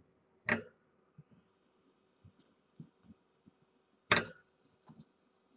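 Kittens hopping and scampering on a towel-covered floor: faint soft thumps of landing paws, with two sharp knocks about three and a half seconds apart.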